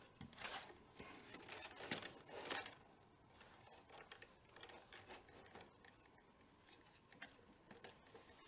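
Faint rustling and rubbing of a leather tabla strap (badhi) being pulled through the drum's braid and lacing ring, with a few louder swishes in the first three seconds and softer scattered ticks after.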